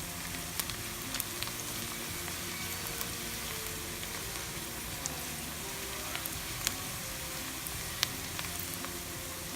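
Sliced onions and green chillies frying in hot oil and butter, a steady sizzle with scattered sharp pops; the onions are browning toward golden brown.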